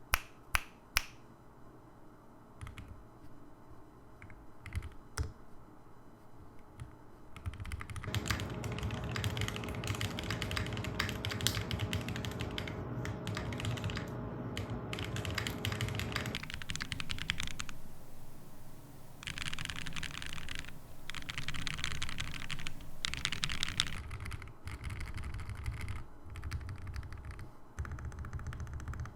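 Custom mechanical keyboard with an aluminum top and brass bottom case, FR4 plate, Nebula switches, Durock V2 stabilizers, Drop DCX keycaps and no foam, being typed on: a few separate key presses for the first several seconds, then fast steady typing, a short pause around the middle, and further bursts of typing.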